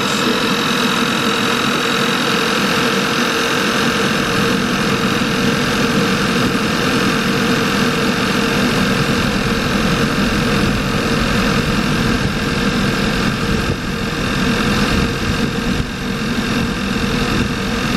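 2009 Audi A4 B8's 2.0 TFSI four-cylinder engine idling with a steady hum while misfiring across several cylinders, with white smoke and a raw-fuel smell, which the mechanic suspects comes from a fuel injector stuck open and leaking fuel.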